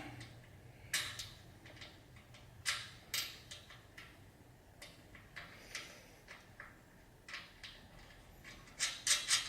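Faint, scattered metallic clicks and ticks from hand-screwing the last fitting into the base of a steel two-post rack, about one every second. They come quicker near the end.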